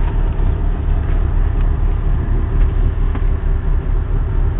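Steady low rumble of the charter boat's engine ticking over at idle.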